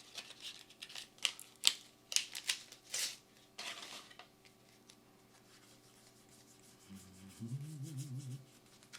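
Trading cards being handled and slid against each other with a light foil booster wrapper: a run of quick rubs, scrapes and clicks in the first three or four seconds, then quieter. A short low wavering hum, like a voice humming, about seven and a half seconds in.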